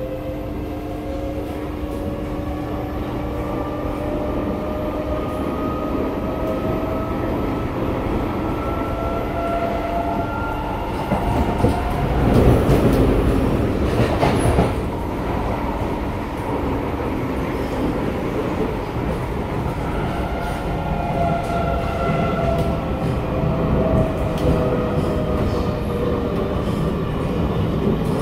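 SMRT C751B metro train heard from inside the car while running: steady rumble of wheels on rail under the whine of the electric traction motors, which rises in pitch as the train gathers speed. About halfway through, a louder rushing swell lasts a few seconds, and later the motor whine falls in pitch as the train slows.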